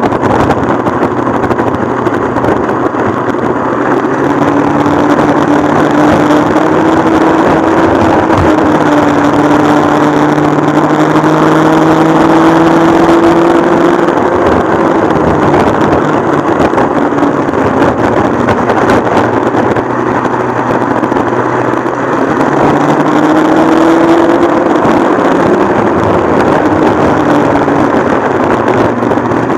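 Modified McCulloch MC49 single-cylinder two-stroke kart engine running under load on track. Its pitch climbs slowly for about ten seconds, falls back, then climbs again near the end.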